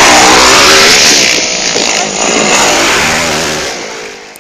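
Motocross dirt bikes racing by on a dirt track, their engines revving loudly with wavering pitch, the noise tapering off near the end.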